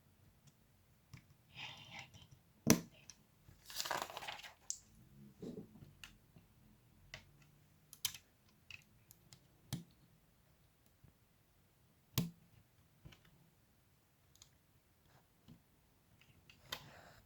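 Plastic LEGO pieces being handled and pressed together: scattered sharp clicks and taps, the loudest a bit under 3 s in and again around 10 and 12 s in, with a couple of short bursts of rustling near the start.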